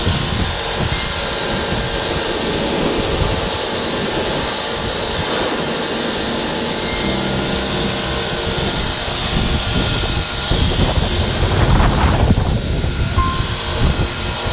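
Pressure washer's high-pressure water jet hissing steadily as it sprays onto a concrete floor, growing louder and rougher about ten seconds in.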